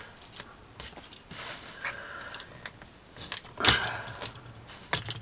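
Light clicks, taps and rustling of small craft pieces being handled on a work table, with one louder knock about three and a half seconds in.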